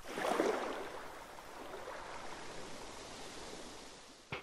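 Rushing sea water, the spray and wake of a yacht under way, swelling in the first half-second and then slowly dying away. A single short, sharp click sounds just before the end.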